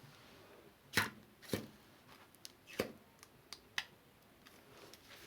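A few sharp clicks and light taps of kitchen utensils and containers being handled while mayonnaise goes into the salad, with faint handling noise between them.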